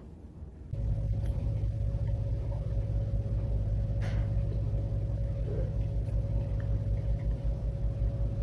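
A steady low rumble with a faint steady hum above it, starting suddenly about a second in.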